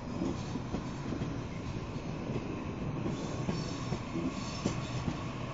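Waratah double-deck electric train running through the station without stopping: a steady rumble of wheels on rail, with scattered clicks and knocks as the cars pass. A faint high-pitched ringing joins about three and a half seconds in.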